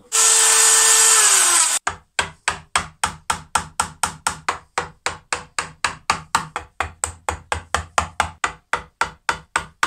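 A palm router runs for under two seconds, its pitch sagging just before it cuts off. Then a wooden joiner's mallet drives a chisel with steady rapid taps, about four a second, chopping out the waste of a dovetail socket in end grain.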